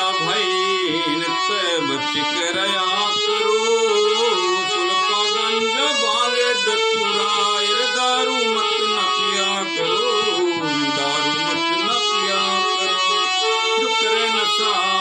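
Harmonium played with the bellows pumped by hand: sustained, reedy notes carrying a melody over steady held tones.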